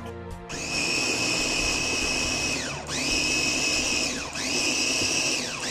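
Electric blender running, blending onions, shallots, carrots, ginger and garlic with water. It starts about half a second in, and its whine dips in pitch and climbs back twice.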